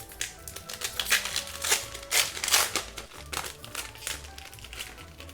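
Pokémon trading cards being flicked through by hand and a foil booster-pack wrapper crinkling: an irregular run of small snaps and rustles, with music in the background.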